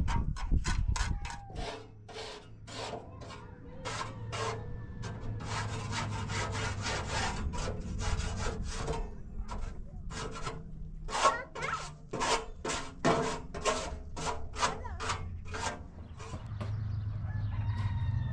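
Steel mason's trowel scraping and chipping at a cement block, rapid irregular rasping strokes several to the second with short pauses. Near the end the scraping stops, leaving a low steady hum.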